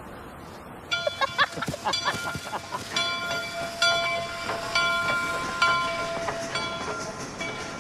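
Train wheels and brakes squealing on the rails. Several high tones start and stop in turn, after a few short gliding squeals about a second in.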